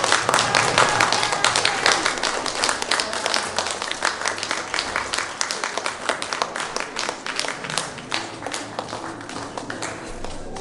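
Audience applauding, dense clapping that slowly dies down toward the end.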